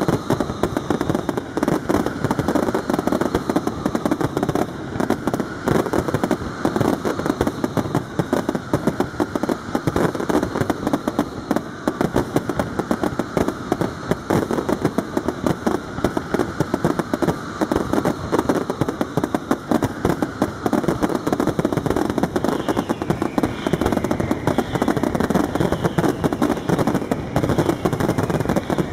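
Aerial fireworks display: a dense, unbroken barrage of shell bursts and crackle, explosions following one another too fast to separate, with a few short whistles in the last third.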